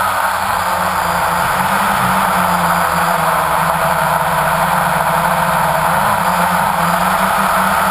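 Multirotor drone's electric motors and propellers buzzing steadily, as picked up by its own onboard camera: a dense, even hiss over a low, slightly wavering hum.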